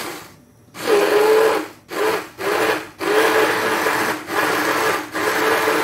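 Electric hand blender grinding cooked rice in milk to a coarse paste. After a short pause it runs in about six bursts with brief breaks, its motor whining steadily under load.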